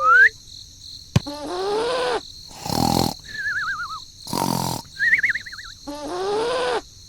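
A string of comic sound effects: a sharp click, two pitched calls that rise and then fall, two warbling wobbly whistle tones, and short noisy bursts.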